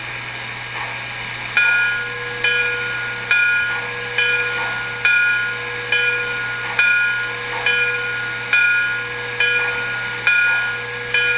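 Locomotive bell from the Proto-Sound 3.0 sound system of an MTH HO-scale PRR 2-8-2 Light Mikado, ringing steadily about once every 0.85 s, twelve strokes, starting about a second and a half in over a steady hiss.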